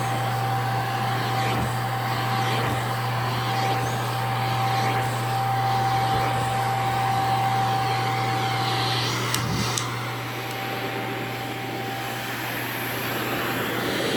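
HiCOZY pet grooming vacuum running steadily, a constant motor hum with a thin steady whine over a rush of suction. A couple of sharp clicks come about halfway through, after which the sound is a little quieter.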